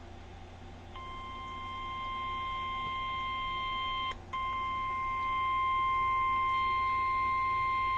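Emergency alert attention tone: the single 1050 Hz warning alarm tone of NOAA Weather Radio, sounding steadily ahead of a National Weather Service severe thunderstorm warning. It starts about a second in, breaks off for an instant just after four seconds and then resumes, with a low hum underneath.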